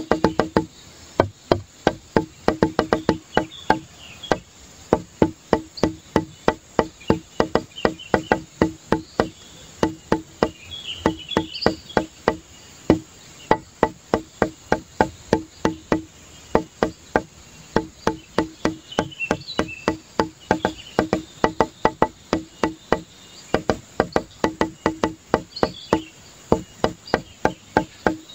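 Background music: a steady beat of clicky, wood-block-like percussive notes, about four a second.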